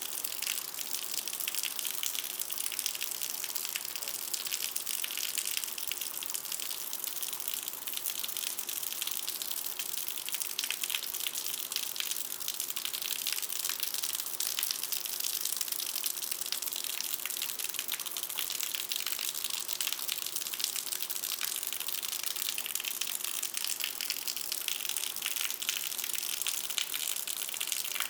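Intense rain pouring onto concrete, a steady dense hiss of many fine drop impacts, with hard drips striking a gutter.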